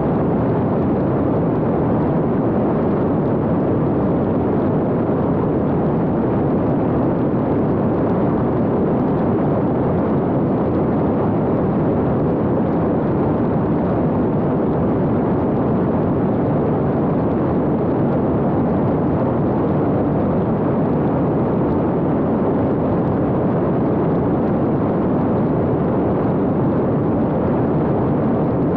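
Steady, even rush of airflow and motor noise from an X-UAV Talon fixed-wing drone in flight, heard through its onboard camera's microphone.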